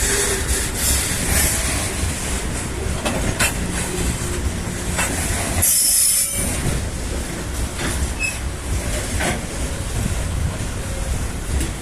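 Loaded freight train wagons rolling past over an overpass: a steady low rumble with clicks of wheels over rail joints, and a brief high wheel squeal about six seconds in.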